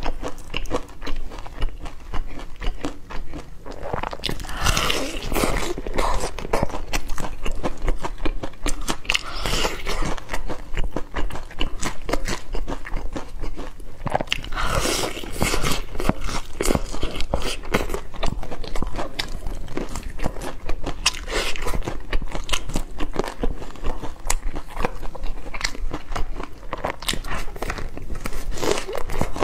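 Close-miked crunching and chewing of crispy fried chicken: a steady run of crunchy bites and chews, with louder clusters of crunches every few seconds.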